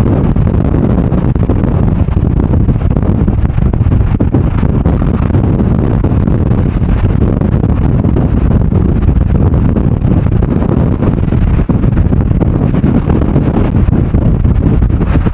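Storm-force wind of about 100 km/h buffeting the microphone: loud, steady, mostly low-pitched wind noise.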